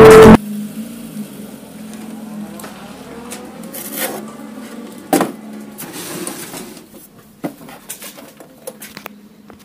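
Loud electronic music stops abruptly just after the start. Then a faint steady hum with scattered clicks and knocks from hands handling audio equipment and its speaker wires, the loudest knock about five seconds in.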